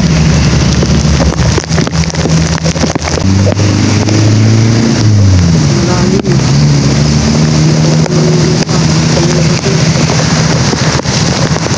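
Vehicle engines running as cars and a pickup drive through floodwater in heavy rain, with a dense rush of rain, water and wind on the microphone. About five seconds in, one engine's pitch drops as a vehicle passes close.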